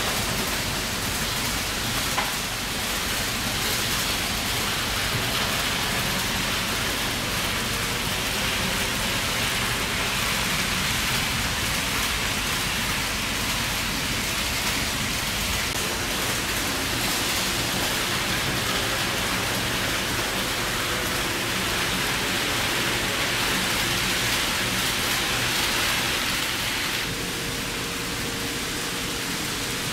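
Model trains running on a layout's track: a steady rushing hiss of wheels on rail and motor whir, a little quieter near the end.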